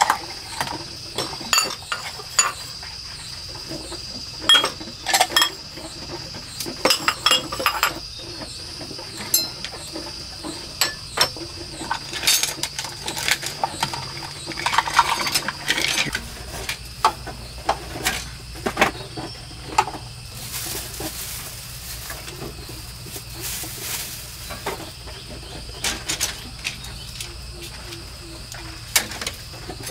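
Bowls clinking and knocking against each other and against bamboo shelf slats as they are lifted from a plastic basket and set down one after another, in irregular runs of short clinks.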